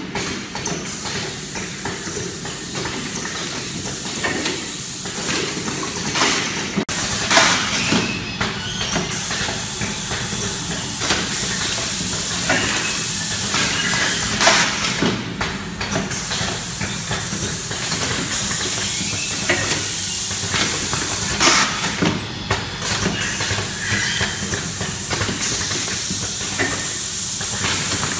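Lab-o-Mat automatic rotary bag filler running: its pneumatic cylinders and valves clack and vent compressed air in repeated hisses, over a steady machine hum.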